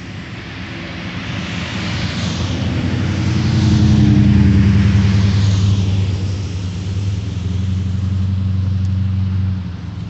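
A car passing on the road: its tyre hiss swells to a peak about four seconds in and then fades, over a low engine hum that drops off sharply near the end.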